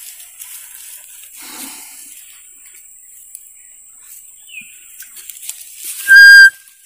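A homemade bamboo barking deer (muntjac) fawn call blown once near the end: a short, loud, steady high-pitched bleat of about half a second. Its bamboo is not yet thinned enough to give the wanted tone.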